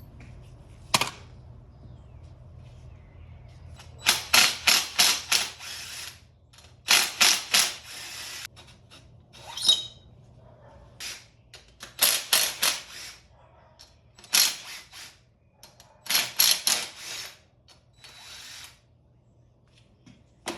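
Hand ratchet wrench clicking in four or five short runs of quick strokes, with a single sharp click about a second in.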